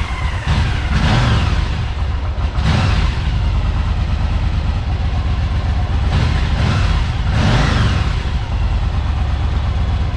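Yamaha Virago's air-cooled V-twin engine running just after starting, its revs rising and falling a few times. It is running on newly replaced ignition coils, plug wires, caps and iridium spark plugs.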